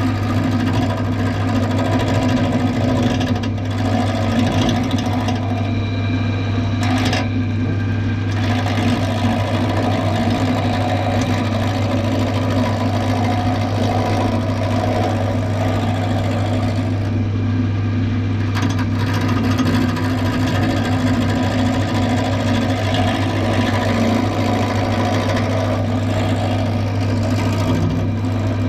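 Clarke CWL1000CF wood lathe running with a steady motor hum while a turning tool cuts into a rough, not-yet-round wood blank; the cutting noise rises and falls, easing briefly twice.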